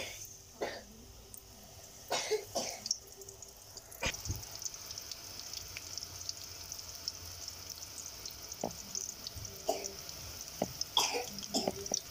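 Jalebi batter frying in hot oil, a steady high sizzling hiss as the batter is squeezed in from a plastic bottle. A few brief sharper sounds sit over it, the loudest about two seconds in and near the end.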